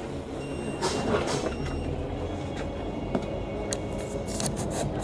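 Inside a KMB Volvo B9TL double-decker bus: the engine runs low and steady under short hisses of air and clunks, typical of the bus stopped at a stop with its doors working.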